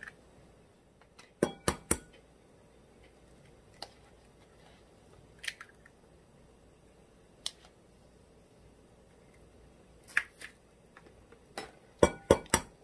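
Kitchen tools clicking and clinking in sharp single strokes and short clusters, some with a slight metallic ring; the loudest run, four quick clicks, comes near the end.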